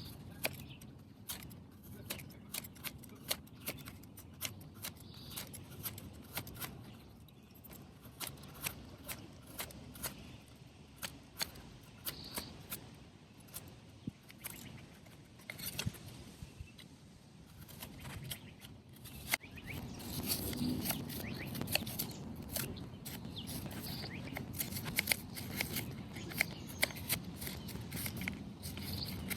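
A run of irregular sharp clicks and taps, several a second, from small objects being handled. They become busier and louder about two-thirds of the way in.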